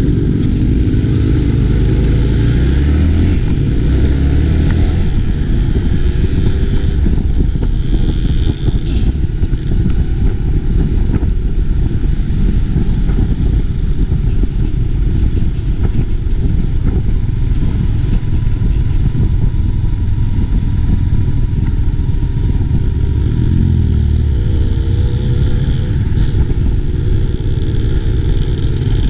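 Yamaha Y15ZR's 150cc single-cylinder four-stroke engine heard from the rider's seat, pulling away and accelerating with a rising engine note over the first few seconds, running steadily through the middle, then rising again a few seconds before the end. Road and wind noise run underneath.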